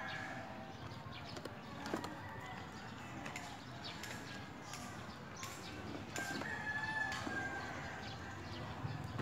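Cardboard packaging and a plastic metal-detector search coil being handled, with scattered light knocks and rustles. A bird gives one long call about six seconds in.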